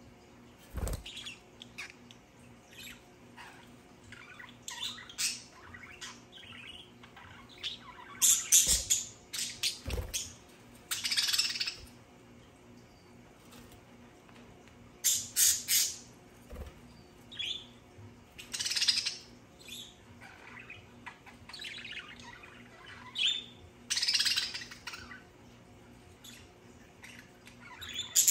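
Budgerigars chirping and squawking in scattered bursts of high-pitched chatter, with a few brief low thumps.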